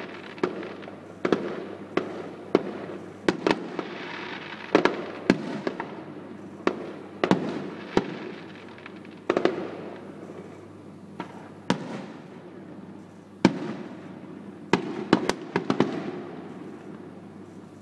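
Aerial fireworks display: an irregular run of sharp bangs from bursting shells, sometimes two or three close together, each trailing off in a fading rumble.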